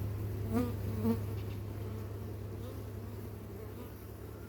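Many honeybees buzzing around an open hive: a steady, low hum that slowly eases off.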